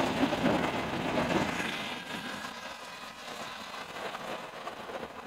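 Steam hissing out of HG-class steam locomotive 2306 at the cylinders, a steady rushing hiss that grows fainter about two seconds in.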